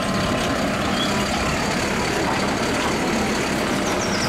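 Mack automated side-loading garbage truck running steadily, its engine and hydraulics working as the side arm lifts a trash cart to dump it.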